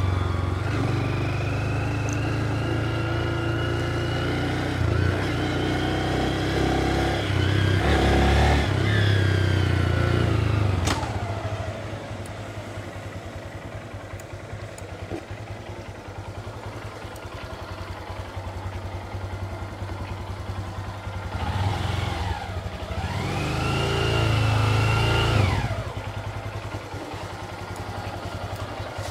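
Honda Grom's small single-cylinder motorcycle engine heard from the rider's helmet mic while riding, its pitch rising and falling through the gears. It drops back to a quieter, lower run about eleven seconds in, then revs up with a rising pitch a little past twenty seconds and falls off again a few seconds later.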